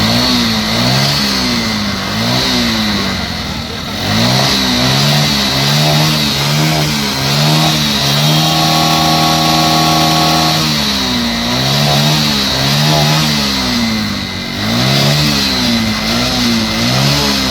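Honda Shine motorcycle's single-cylinder four-stroke engine being revved in repeated throttle blips, the pitch rising and falling about once a second, then held steady at one speed for about two seconds midway before the blips resume. The engine is being run to test the exhaust after its silencer blockage was cleared.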